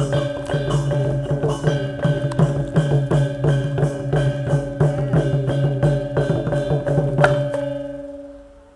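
Music with a quick, even percussive beat of about four strokes a second over steady held tones. One louder hit comes near the end, and then the music fades out.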